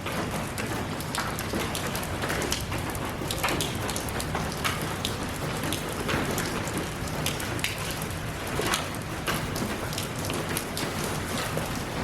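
Steady rain, with many individual drops ticking sharply close by over an even hiss.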